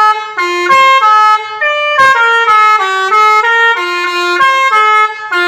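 Multi-tone 'telolet Pakistan' (basuri-style) bus horn playing a fast melody, with a new note every fraction of a second and brief breaks between phrases.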